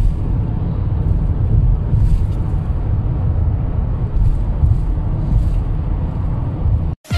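Road noise inside a car moving at highway speed: a steady low rumble of tyres and engine. It cuts off abruptly about seven seconds in, and music starts right at the end.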